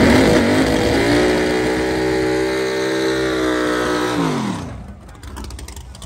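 Drag car launching off the starting line: the engine's pitch climbs sharply, then holds a steady wide-open-throttle note as it pulls down the strip. About four seconds in the pitch drops and the sound falls away suddenly.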